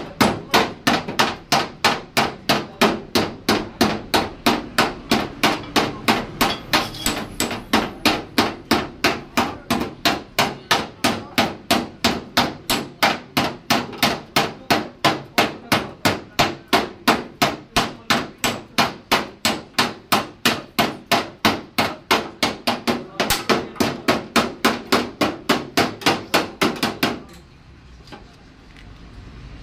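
Hand hammer beating the bent edge of a Toyota Innova's sheet-metal bonnet straight during dent repair: a steady run of sharp metal-on-metal blows, about three a second, which stops shortly before the end.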